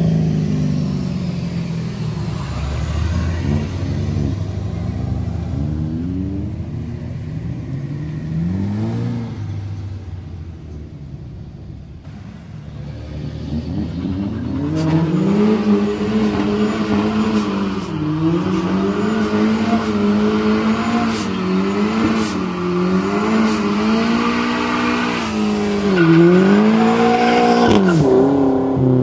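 Car engines revving as cars pull away. From about halfway through, one engine is held at high revs, its pitch rising and dipping again and again, while its rear tyres spin in a burnout with a hiss of tyre squeal.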